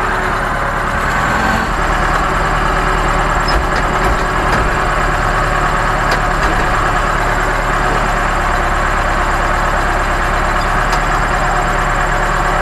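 Ostrówek backhoe loader's Perkins diesel engine running steadily, heard from inside the cab while the loader arm holds its bucket of manure raised over the spreader.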